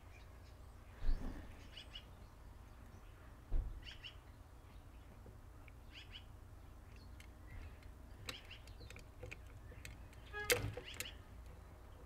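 Metal parts of a Bosch VE diesel injection pump handled as the pump head is fitted to the pump body: a few light knocks and clinks, the loudest about ten seconds in, over a low steady hum. Faint bird chirps come and go.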